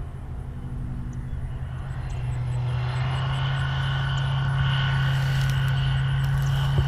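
Single-engine bush plane's engine and propeller running steadily, growing louder as the plane comes in low over the field to land.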